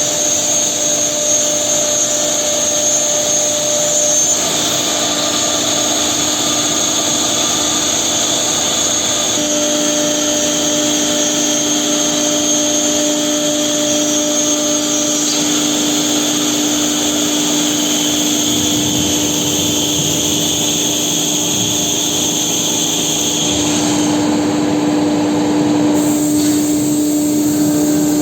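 Four-head CNC nesting router running: a steady whine over a constant rushing noise, its tones stepping to new pitches about four, nine and twenty-three seconds in.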